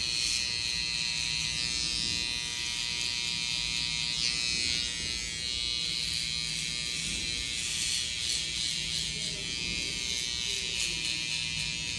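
Electric hair trimmer buzzing steadily while cutting hair short around the ear.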